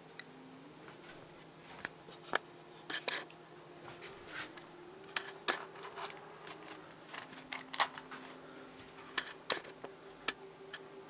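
A small lop-eared rabbit nibbling and eating food pellets from a bowl: irregular sharp clicks and crunches, single and in short clusters, over a faint steady hum.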